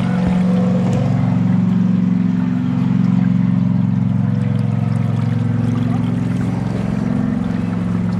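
An engine running steadily at an even pitch, a constant low hum.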